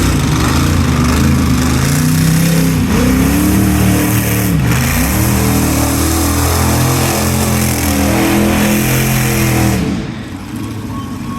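Monster truck engine revving hard. The pitch drops and climbs back twice in the first few seconds, is then held high, and falls away about ten seconds in.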